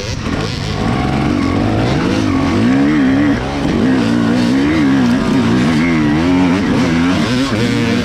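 Dirt bike engine revving up and down with quick, repeated throttle changes, its pitch rising and falling several times over a steadier low drone.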